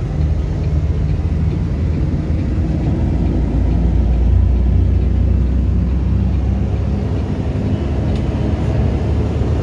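Steady low rumble of a vehicle engine and road noise, heard from inside a moving vehicle's cab, swelling a little in the middle.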